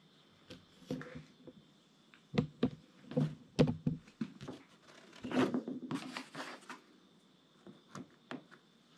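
Intermittent light knocks, clicks and scrapes of a thin wooden batten and small clamps being handled and set against pins on a plywood sheet, with a busier run of clatter in the middle.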